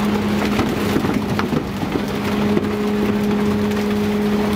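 Tuna splashing and thrashing in a net being hauled aboard a fishing boat, dense crackling and splattering water, thickest in the first half, over the steady hum of the boat's machinery.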